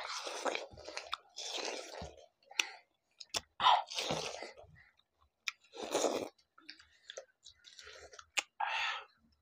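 Several people biting into and chewing watermelon slices: about five crunching bites spread a second or two apart, with small sharp clicks between them.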